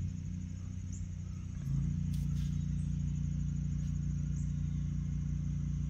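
Steady low hum of an idling vehicle engine, growing slightly louder about two seconds in.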